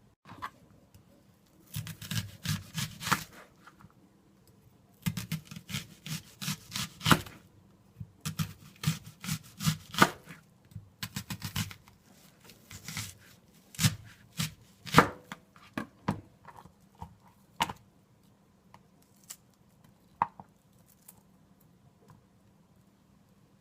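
Knife slicing an onion on a cutting board: several runs of quick strokes with short pauses between them, then a few single knocks.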